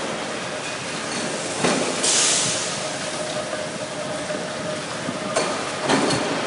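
Factory shop-floor machinery noise: a steady din with a short loud hiss about two seconds in, a humming tone through the middle, and a few sharp metallic knocks near the end.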